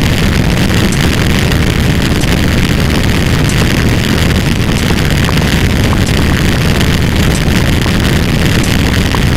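A loud, dense wall of many overlapping sound effects, merged into one steady noise with no breaks.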